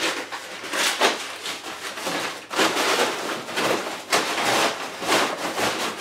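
Brown paper bag rustling and crinkling as it is handled and pushed into a cardboard box, in a run of irregular crackly swells.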